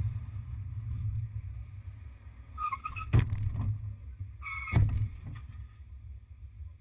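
Car interior as heard on a dash-cam: a steady low rumble of engine and road. About three seconds in and again near five seconds come two short, high tones, each with a sharp knock.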